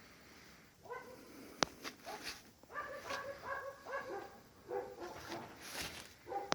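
Dog whining and yipping in many short, high calls, with a sharp click about one and a half seconds in.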